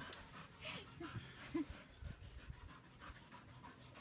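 A dog panting quickly and rhythmically, faint.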